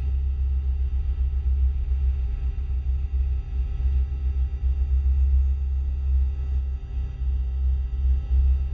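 Synthesized UFO hover sound effect: a deep, wavering low hum with several faint steady tones above it.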